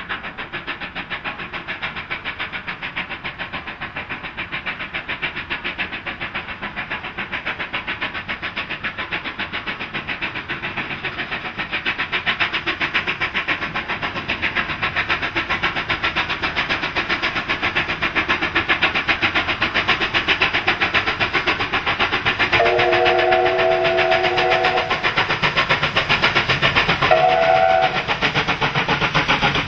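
NSW steam locomotive 3801 working hard with a train, its exhaust beating rapidly and evenly and growing louder as it draws nearer. Its whistle sounds a chord, one long blast and then a short one near the end.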